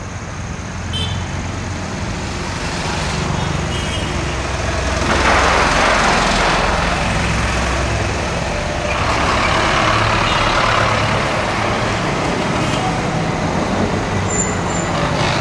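Street traffic with auto-rickshaw and car engines running and passing close by. There are two louder swells of passing-vehicle noise, about five and nine seconds in, and a few short high beeps scattered through.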